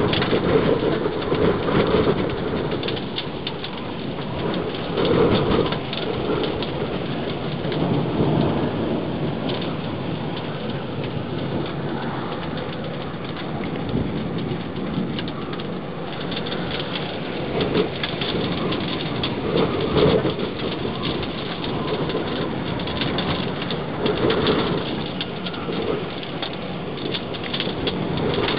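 Rain falling steadily with a pattering hiss, and swells of low rumbling every few seconds, as in a thunderstorm.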